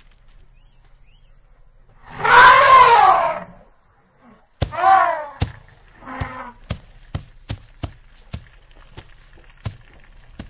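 Elephant trumpeting: one long loud call about two seconds in, then a shorter call and a fainter third call near the middle. A run of sharp clicks follows, about two a second.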